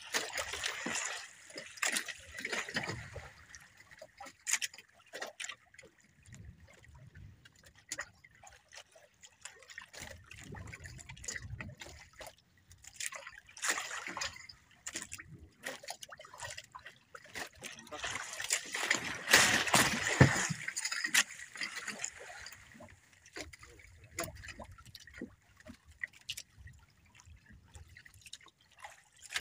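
Sea water lapping and splashing against the hull of a small outrigger fishing boat in uneven surges, the biggest about two-thirds of the way through.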